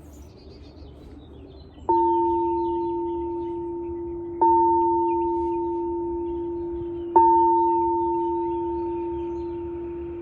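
Singing bowl tapped three times, about two and a half seconds apart. Each strike rings on with a low tone and a fainter higher one, fading slowly and still sounding when the next tap comes.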